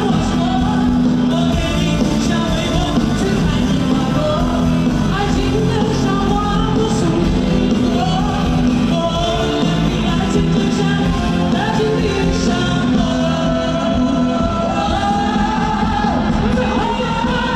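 Live rock song performed by a band with sung vocals, at a steady loud level.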